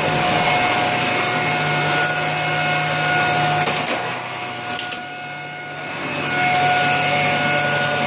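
Fakir Darky upright vacuum cleaner running, a steady motor whine and suction hiss as the floor nozzle is pushed over laminate and tile. About four seconds in the sound drops and grows quieter for roughly two seconds, then comes back up to full.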